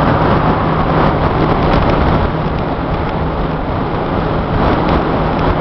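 Steady rushing road and wind noise inside a car cruising at freeway speed, with a faint steady low hum under it.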